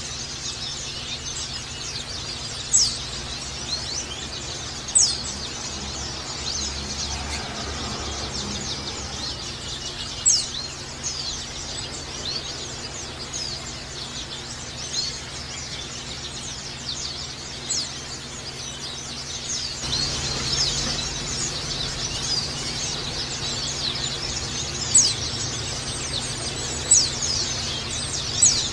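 White-eye (pleci) song: a dense, fast, unbroken run of high thin chirps and twitters, the sustained full song bird-keepers call 'ngecal'. Several louder, sharp chirps stand out above the chatter.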